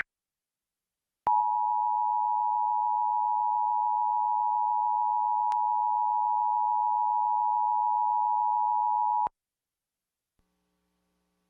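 Emergency Alert System two-tone attention signal: two steady tones sounding together, starting a little over a second in and held unchanged for about eight seconds before cutting off suddenly.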